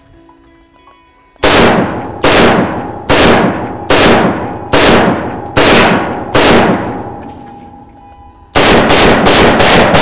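AK-pattern semi-automatic rifle firing: seven shots at a steady pace about 0.8 s apart, each ringing out, then after a short pause a quick string of about six shots near the end. Faint background music underneath.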